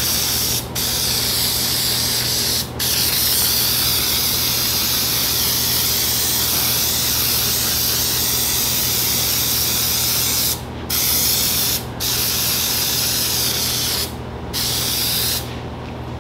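Aerosol can of headliner spray adhesive hissing in long sprays, stopping briefly between passes: a few short breaks, more of them in the last few seconds. It is a second coat of glue, laid across the first to tack up for the fabric.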